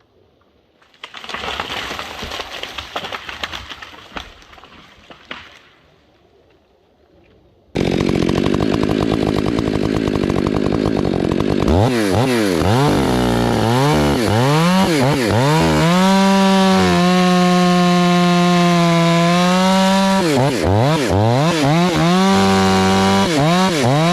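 Two-stroke chainsaw revving up and down over and over, then held at a steady high throttle for a few seconds before revving again. A shorter burst of rough noise comes in the first few seconds.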